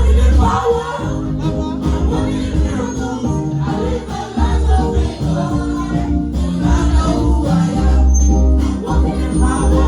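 Gospel choir anthem sung with a live band: young voices over a heavy bass line, with tambourine-like shaken percussion.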